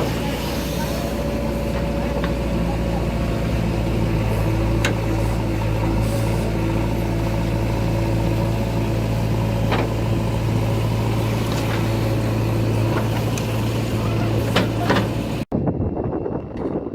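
Heavy diesel engine running steadily, with sharp knocks now and then. It cuts off abruptly near the end, leaving only faint noise.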